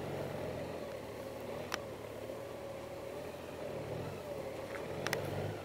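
Honda Gold Wing motorcycle's flat-six engine running at low speed, swelling twice as the bike is eased along and turned on gravel, with two sharp clicks.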